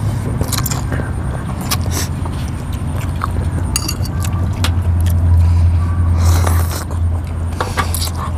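Rice noodles slurped and spoons clinking and scraping against glass bowls, in a string of short sharp clicks and a few longer slurps. Under it runs a steady low rumble that swells about five seconds in.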